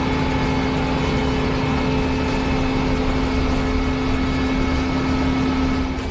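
Potato harvester machinery and its engine running steadily, with a continuous humming tone over the engine noise.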